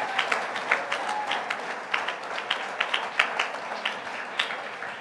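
Church congregation applauding: many scattered hand claps over a steady patter, slowly dying down.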